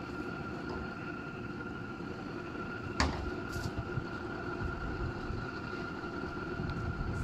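Home-built propane forge running: a steady burner roar with a constant whine from its home-made blower. A single sharp knock sounds about three seconds in.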